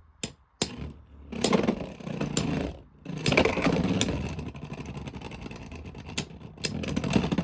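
Beyblade X spinning tops whirring in a plastic stadium, clashing with repeated sharp clicks and knocks as they hit each other and the walls.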